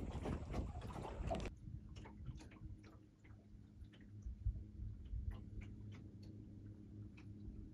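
Wind on the microphone with water noise for about the first second and a half. It then cuts to a quieter stretch of scattered, irregular light ticks and clicks, like small water lapping against the hull of a small sailboat drifting in light air.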